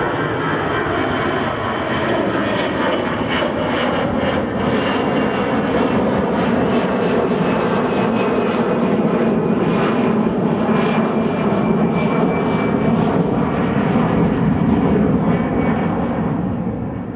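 Twin jet engines of an easyJet Airbus airliner climbing out after takeoff: a steady, dense rumble with a crackling edge and a faint whine, slowly growing louder.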